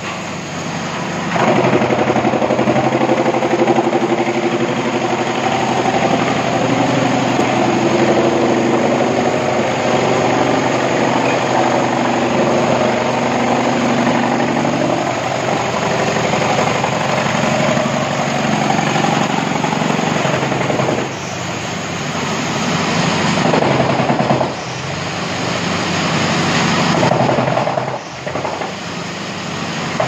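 Pezzolato PTH 40.70 MULTICUT drum wood chipper, PTO-driven by a tractor, chipping logs: a loud, steady chipping noise over the tractor engine working under load. It grows louder about a second and a half in and eases briefly three times in the last third as the feed of wood pauses.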